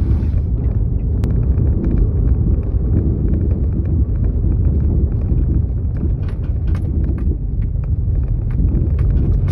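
Rumbling from the rear of a Mk6 Ford Fiesta ST150 on the move, heard inside the car: a steady low rumble with many irregular knocks and rattles through it. The owner traced the noise to a blown rear shock absorber.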